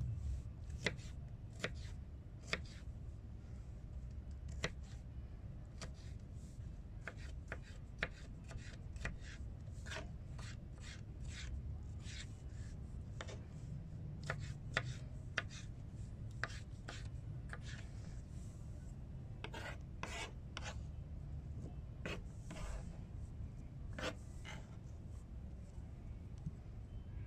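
Knife blade cutting and slicing a tomato on a cutting board: irregular taps and short slicing strokes, several a second at times, over a steady low hum.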